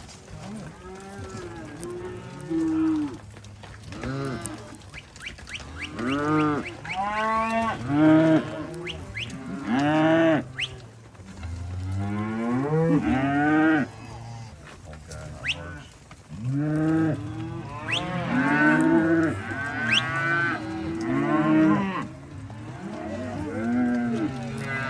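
A herd of cattle mooing, many calls overlapping one after another with hardly a break, some gliding up and down in pitch.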